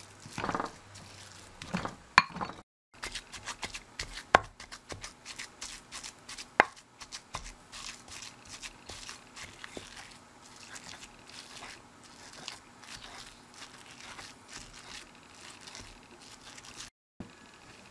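Wooden pestle grinding raw white fish into paste in a ridged ceramic suribachi: a fast, steady run of scraping and clicking strokes, with a few sharper knocks against the bowl in the first several seconds.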